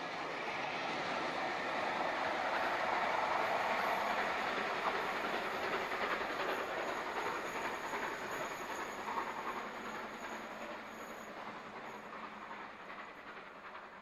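Snowdon Mountain Railway rack train running past, its noise swelling to loudest about three to four seconds in and then slowly fading away.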